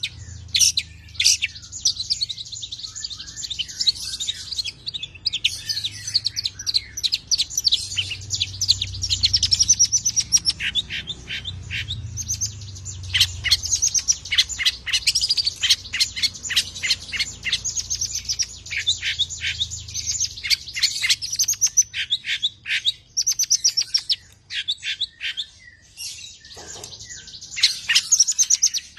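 Long-tailed shrike (cendet) singing a long, varied song of high chattering notes, much of it fast rapid-fire runs of repeated notes (the "nembak" style), with a brief lull about three-quarters of the way through.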